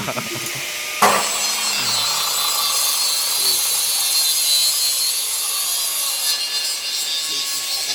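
TIG welding arc on stainless steel: the arc strikes with a sharp crack about a second in and is then held as a steady, high-pitched hiss.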